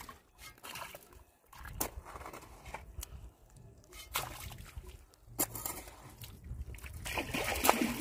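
Shallow muddy water sloshing and splashing as hands scoop and pack wet mud against bamboo stakes, with several sharp knocks scattered through it and a busier burst of splashing near the end.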